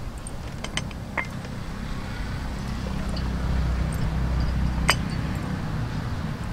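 A low, steady motor hum, like an engine running some way off, that grows louder toward the middle. A few light clicks sound over it, the sharpest about five seconds in.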